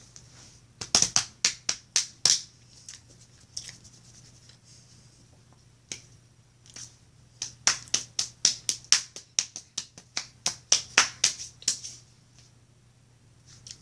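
Close-up chewing with lip smacking: two runs of quick clicking smacks, about five a second, a short run near the start and a longer one in the middle.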